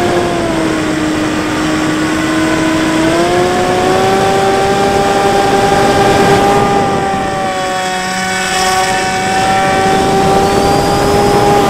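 Bixler 3 RC plane's electric motor and propeller whining in flight, with air rushing past. The whine drops in pitch about half a second in, climbs about three seconds in as the motor speeds up, then holds steady with a slight sag before rising again near the end.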